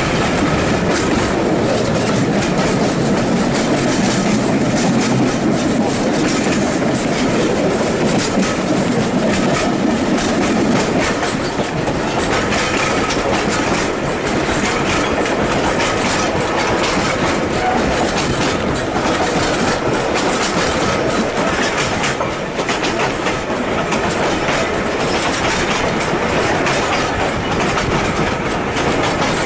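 Heritage railway train running along the track: a steady rumble of the carriages with the clickety-clack of steel wheels over the rail joints, a little heavier in the first third.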